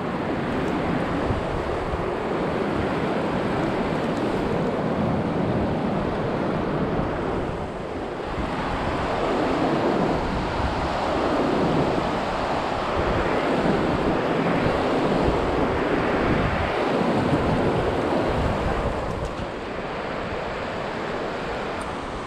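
Fast river rapids rushing steadily over rocks, with wind buffeting the microphone.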